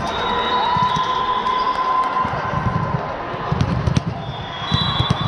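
Indoor volleyball game sounds in a gymnasium: the ball struck and bouncing on the floor in scattered sharp knocks and thuds, with players' voices echoing in the hall.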